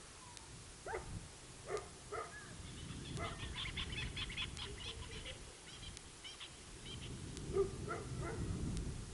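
Wild animal calls: a few short rising calls in the first two seconds, then a fast run of high chirping notes from about three to seven seconds in, and a few more calls near the end, over a low rumble.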